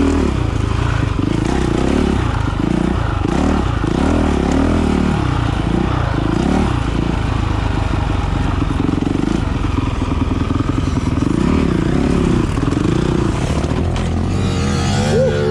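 Honda CRF dirt bike engine heard from the rider's seat, its pitch rising and falling again and again as the throttle is rolled on and off over the sand. Near the end a second, higher-pitched engine whine joins in.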